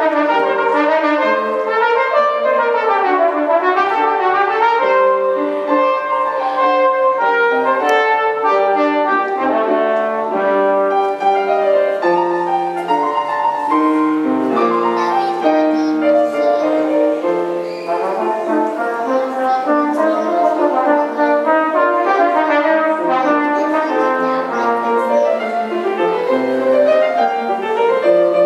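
A brass instrument playing a busy, moving melody line, accompanied by a grand piano, with no pauses.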